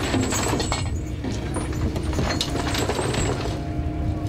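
Trawler's engine droning steadily, with a rattle of clinks and knocks as the trawl, its floats and gear pay out off the stern net drums into the sea.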